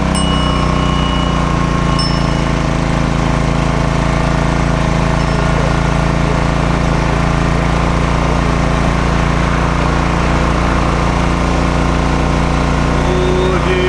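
Portable engine-driven generator running steadily, powering the float's lanterns and lights; its engine noise is loud and unchanging. Two brief high rings sound in the first two seconds.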